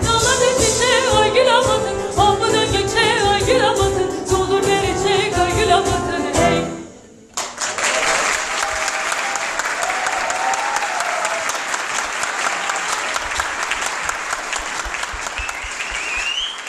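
Female voice singing with piano and percussion, stopping abruptly about seven seconds in. After a brief pause the audience breaks into steady applause.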